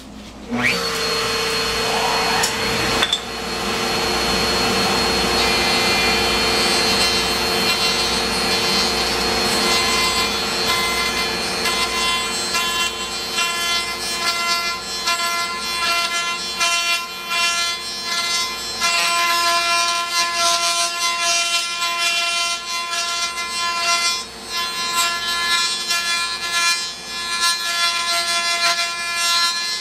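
Table-mounted router starts about half a second in and runs steadily with a high whine at about mid speed, while a 1-inch round-over bit cuts into the ends of wooden dowels turned against it, adding a rasping cutting noise that comes and goes.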